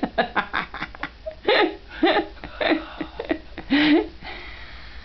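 Laughter in a few short separate bursts with pauses between them.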